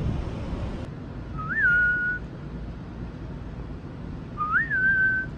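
A person whistles twice to call the cat. Each whistle is a quick upward flick followed by a held, level note of about half a second.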